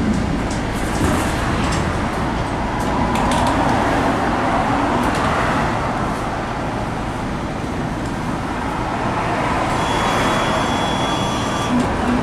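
Tram running along its track, heard from inside the car: steady rolling and running noise with the electric motor's whine wavering in pitch. A high steady tone sounds for about two seconds near the end.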